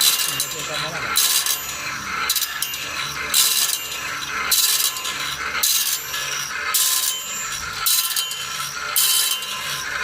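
Electroplated CBN grinding wheel on a band saw blade sharpening machine, grinding the blade tooth by tooth: a short gritty grinding stroke about once a second, with quieter mechanical clicking of the indexing between strokes.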